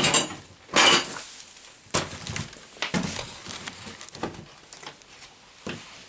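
Tools and small hard objects being handled and set down. A loud scraping rustle comes in the first second, then a string of separate knocks and clicks.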